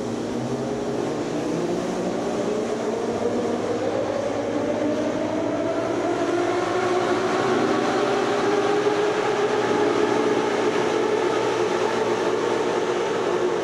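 Moscow Metro train pulling out of the station: its traction motors whine in a steadily rising pitch as it accelerates, over a rumble that grows louder.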